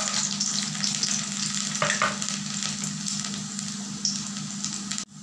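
Chopped garlic sizzling and crackling in hot oil in a kadhai with dried red chillies, a steady frying hiss, with a few knocks near the start and about two seconds in.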